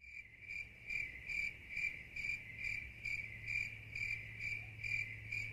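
Cricket chirping sound effect: a single steady train of short, high chirps, about two a second, over a faint low hum, the stock cue for an awkward silence where nothing is happening.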